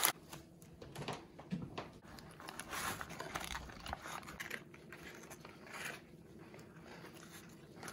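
Faint, irregular rustling and crinkling of grease-soaked wrapping paper being peeled open by gloved hands to uncover a smoked beef short rib.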